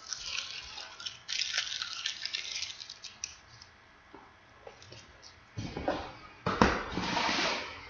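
Rustling and crinkling of trading-card pack packaging being handled and cut open, with a quiet pause in the middle and a louder stretch of crinkling near the end.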